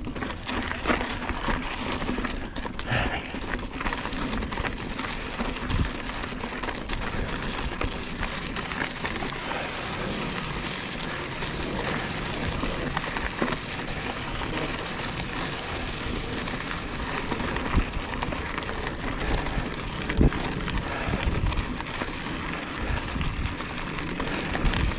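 Mountain bike tyres rolling over rocky dirt singletrack: a steady noise full of small clicks from grit and stones, with a constant low rumble and a few sharper knocks as the bike jolts over rocks.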